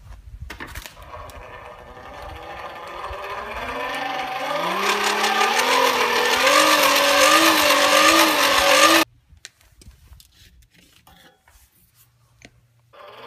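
Hair dryer used as a forge blower, running with a rushing of air and a motor hum that climbs in pitch and wavers as it grows louder. It is switched off suddenly about nine seconds in and starts up again near the end.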